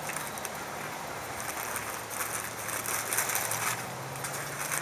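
Paper burger wrapper crinkling and rustling as the burger is handled, in irregular bursts strongest in the middle, over a faint steady low hum.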